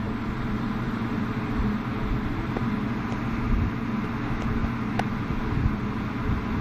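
Steady low hum and rumble of an indoor firing range's room noise, typical of its ventilation fans, with a few faint ticks.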